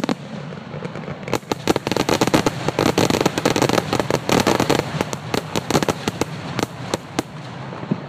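Fireworks finale barrage: a dense, rapid run of overlapping bangs that thins out near the end to a few last single bursts.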